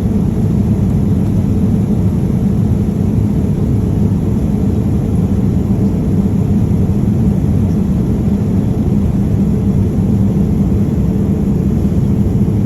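Steady low rumble of an airliner cabin: the jet engines and rushing airflow heard from inside the passenger cabin, even and unchanging.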